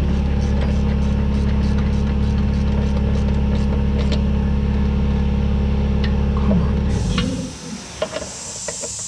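A motor running with a steady low hum cuts off suddenly about seven seconds in, followed by scattered light metallic clicks and taps.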